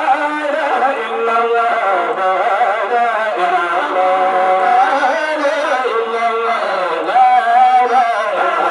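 Male voices chanting a Sufi zikr hymn into microphones, a lead singer holding long, wavering melismatic notes.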